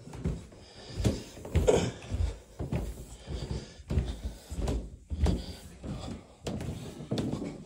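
Footsteps going down a carpeted staircase: a dull thump at each step, about a dozen in a steady rhythm.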